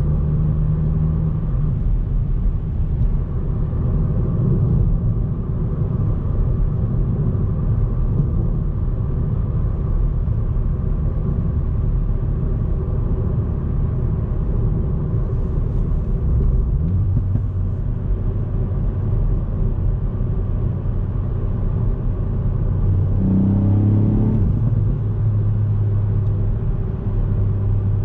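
Ford Fiesta ST Mk8's 1.5-litre turbocharged three-cylinder engine running under way, with road rumble. About 23 seconds in the engine pitch rises briefly, then settles into a steady low drone.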